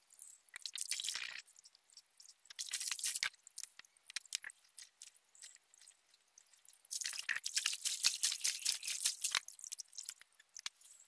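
Stream water scooped up by hand and splashed onto the face and body, with dripping: three bouts of splashing, the last and longest about seven seconds in.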